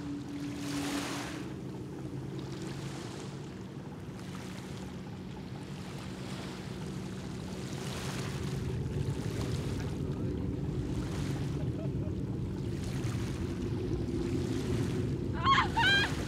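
Small waves lapping every second or two over the distant low hum of a Boeing 777-200's jet engines, which slowly grows louder as the airliner moves out onto the runway. Near the end a brief, high-pitched call cuts in.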